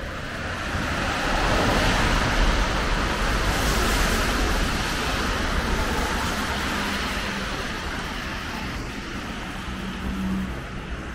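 A car passing on a wet street, its tyres hissing on the water. The sound swells over the first few seconds, then fades slowly as it moves away.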